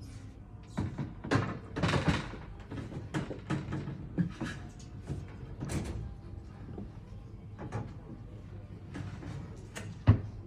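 Bed-frame parts, likely the slats, being handled and set in place: irregular knocks and clatters, with one sharp knock near the end.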